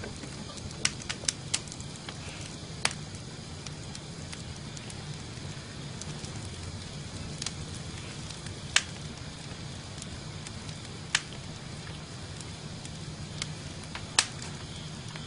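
A quiet wood fire crackling: sparse, irregular sharp pops over a low steady hum.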